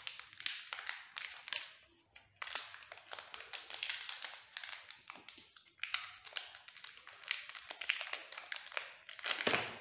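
Small plastic component packet crinkling and rustling in the hands as it is cut open with scissors: dense, irregular crackles with short pauses and a louder rustle near the end.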